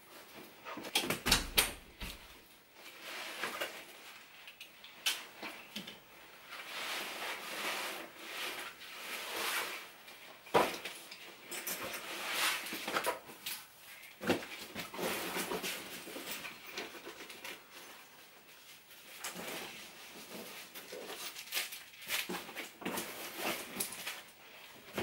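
A person moving about a room and taking off and putting down a shoulder bag and backpack: rustling of fabric and straps with scattered knocks and thumps, the loudest about a second in.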